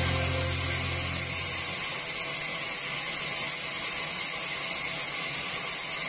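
Steady high-pitched hiss of sawmill machinery running, with a low hum that fades out in the first two seconds.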